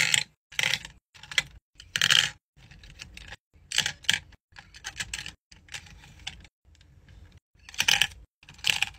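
Pens, markers and pencils clattering as they are dropped and pushed one by one into a plastic pen holder: a string of short clicks and rattles, with a quieter stretch just past the middle.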